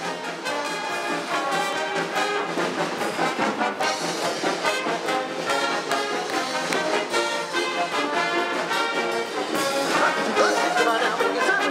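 Lively brass band music, with trumpets and trombones playing an upbeat tune, getting a little louder near the end.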